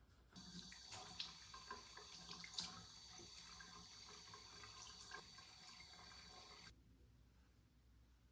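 Water running from a tap for about six seconds, with a few small knocks and clinks, then cut off suddenly.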